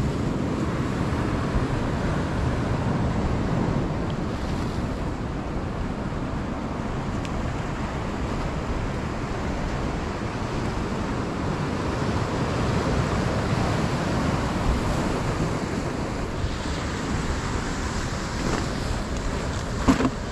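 Ocean surf washing steadily on a beach, with wind buffeting the microphone. A short sharp knock sounds near the end.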